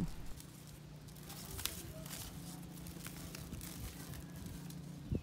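Faint ambience: a low, steady hum with a few scattered light clicks.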